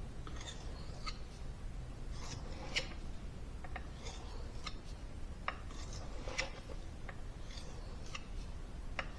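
Steel knife blade drawn back and forth across a wet 4000-grit Minonokuni waterstone: faint, short scraping strokes, about one or two a second, as the edge is honed and polished before stropping.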